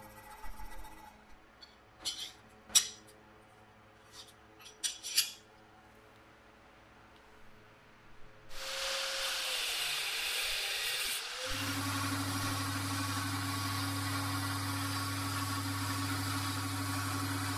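A few light clicks and taps, then a steady hiss of abrasive grinding, joined about two-thirds of the way in by the even hum of a belt grinder's motor as the steel knife blade is ground on the belt.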